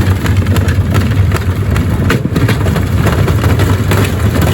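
Gorenje washing machine running loaded with bricks: a steady low motor hum with repeated knocks and bangs as the bricks tumble in the drum.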